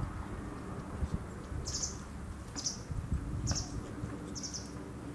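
A small bird calling four times, about once a second, in short high-pitched notes, over a low steady rumble of background noise.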